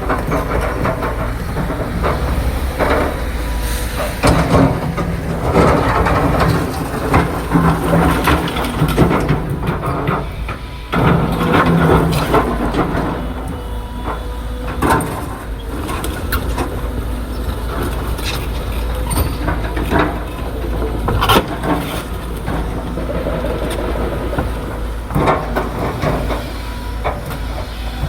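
Heavy excavator running with a steady low drone, with irregular clanks and knocks of metal from its working parts.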